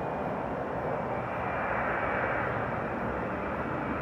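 Boeing 737-300 with CFM56-3 turbofan engines on final approach, gear down: a steady jet rush with a faint high whine, growing slightly louder as it comes closer.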